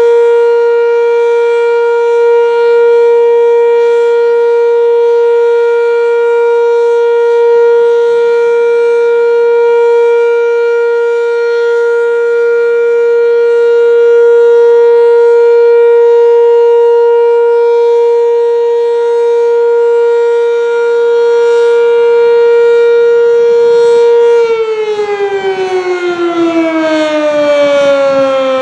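Sentry 10V outdoor warning siren sounding its steady Alert tone, one unwavering pitch, then winding down about 24 seconds in as the pitch falls steadily at the end of the test signal.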